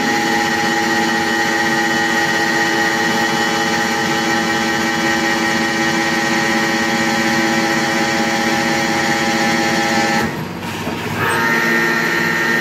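Concrete pile-driving rig's machinery running with a steady, many-toned whine and no hammer blows. It drops out for about a second near the end, then picks up again at a slightly higher pitch.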